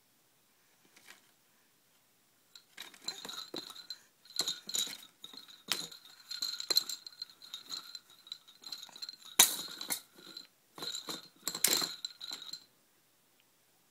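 A baby's toy rattling and jingling as it is batted by hand: clusters of quick knocks with a bright, bell-like ring, starting about two and a half seconds in and stopping a little before the end.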